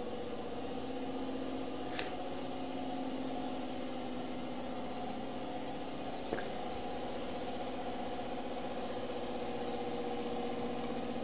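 Pallet conveyor line running: a steady motor hum with a couple of short clicks.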